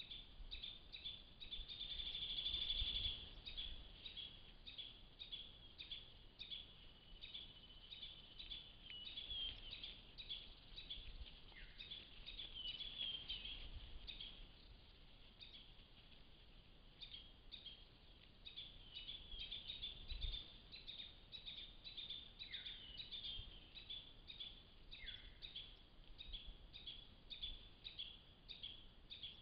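Woodland chirping: a steady run of short, high chirps about two to three a second, with a few falling whistles here and there and faint low rustles, loudest a couple of seconds in.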